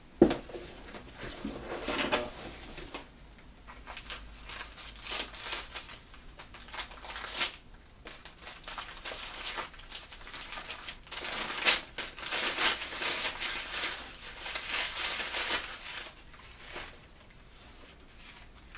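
Wrapping crinkling and rustling in irregular bursts as items are unwrapped and handled, with a sharp knock right at the start and another about two-thirds of the way through.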